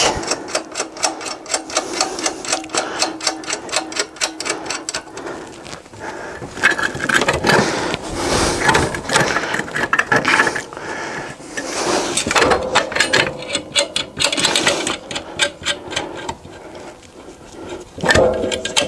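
Hand-tool work on the metal frame of an attic stair: a run of rapid, even metallic clicks for the first five seconds or so, then irregular clinks and knocks.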